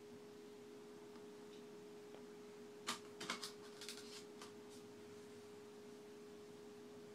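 Faint steady hum, with a short cluster of light clicks and scrapes about three seconds in.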